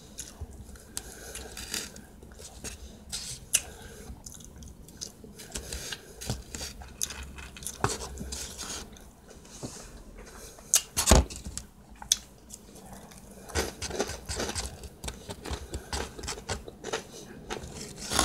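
Close-up eating sounds: a person chewing, with a plastic fork scraping and clicking against a takeout food container in short, irregular strokes. A single loud knock about eleven seconds in stands out above the rest.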